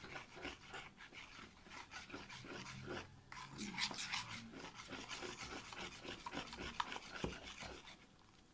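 Slime mixture being stirred in a plastic tub, faint rhythmic scraping and rubbing strokes at about three to four a second.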